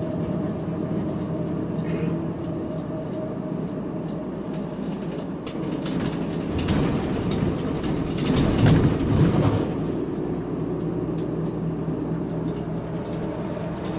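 Inside a moving bus: steady engine hum and road noise, with rattling and knocks that grow louder for a few seconds past the middle.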